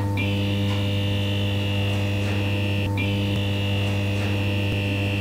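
Steady electrical mains hum, a low hum with a high whine above it, dropping out for an instant about three seconds in.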